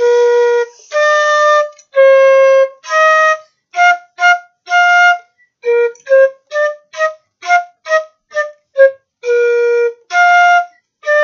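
A simple melody played one note at a time in a flute-like tone. Long held notes open and close it, with a run of short, quick notes in the middle.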